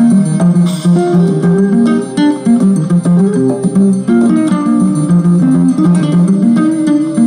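Background music played on a plucked string instrument, with a melody of separate picked notes.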